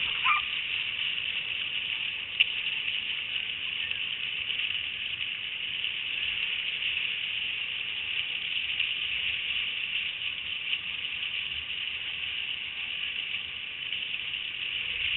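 Steady hiss of skis gliding over groomed snow while a dog team pulls the skier, with one sharp click about two and a half seconds in.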